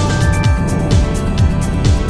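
Background music: an electronic track with a kick drum about twice a second and sustained synth notes.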